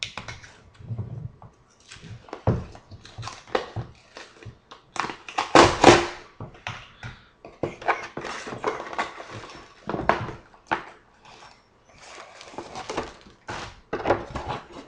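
A cardboard box and its paper packing being handled and opened: a run of crinkling, tearing and scraping noises, loudest about six seconds in.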